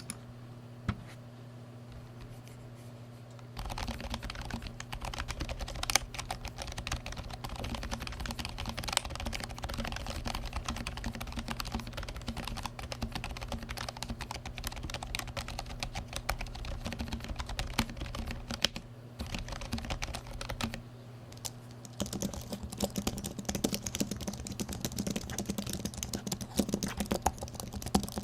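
Rapid continuous typing on a keyboard as a typing sound test, starting a few seconds in. There is a short break about two-thirds of the way through, and the typing resumes sounding brighter and fuller near the end.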